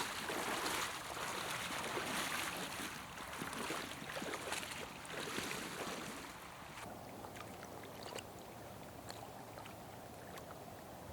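River water splashing and sloshing, loud and uneven for about the first six seconds, then settling to a fainter steady rush with scattered small clicks.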